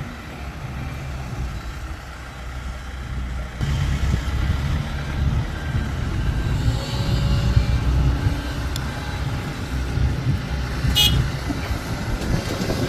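Low, steady engine rumble of heavy diesel machinery (excavator and dump trucks), becoming louder a little over three seconds in, with a brief high-pitched sound near the end.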